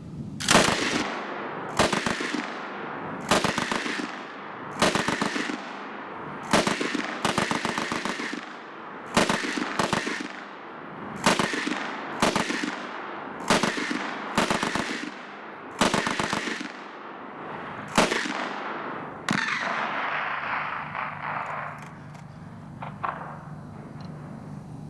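Lewis Mk 1 .303" light machine gun fired one shot at a time: about fourteen sharp reports, roughly a second to a second and a half apart, each with an echo trailing off. The shots stop about 19 seconds in.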